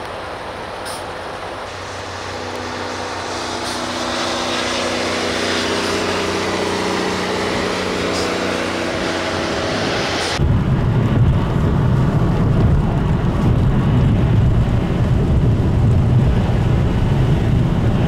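A heavy truck's diesel engine drones as it drives along the snowy highway, its steady pitched note growing louder over several seconds. About ten seconds in, the sound cuts abruptly to a louder low rumbling noise.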